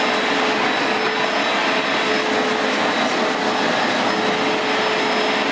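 Upright carpet cleaner running steadily: an even rushing noise with a constant whine from its motor.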